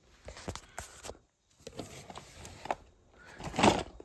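Handling noise of toy cars being rummaged through in a box: scattered light clicks and knocks, with a louder rustling scrape a little after three seconds.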